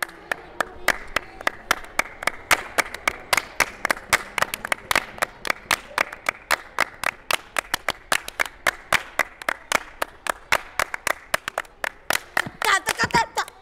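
Children's hands clapping in a steady rhythm, about four claps a second, as in a hand-clapping game. Near the end the claps come thicker and louder and voices join in.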